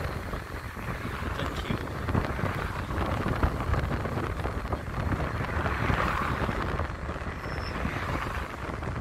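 Wind noise on the microphone over the steady rush of road traffic, swelling as a car goes past about six seconds in.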